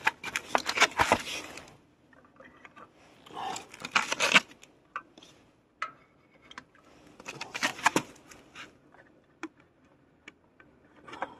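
Hands setting playing cards into plastic clips on top of tin cans close to the microphone. Scattered clicks, scrapes and card rustles come in three short spells with quiet gaps between.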